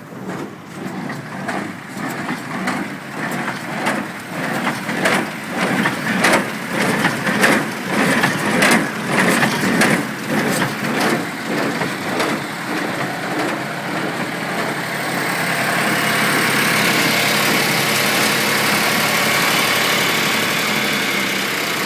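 International Harvester 47 hay baler running off a tractor, its plunger knocking rhythmically about twice a second as it packs hay into bales. About two-thirds of the way through, the knocks give way to a steadier, louder running noise.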